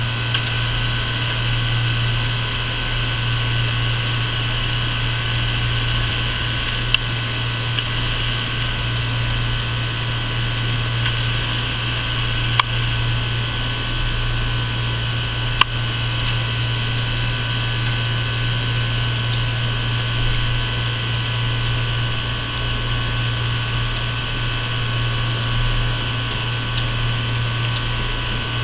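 Steady mechanical hum with a low drone and several steady higher tones, like a room air conditioner or fan running, broken by a few faint sharp clicks.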